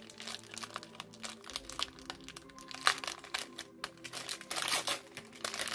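Gift wrapping paper being torn open and crumpled by hand: irregular crinkling and rustling with sharper rips, busier in the second half.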